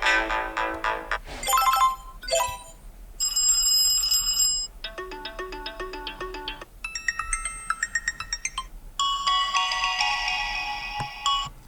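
Stock ringtones of a TCL 30 SE smartphone previewed one after another: about seven short electronic melodies, each playing for a second or two before it cuts off and the next begins.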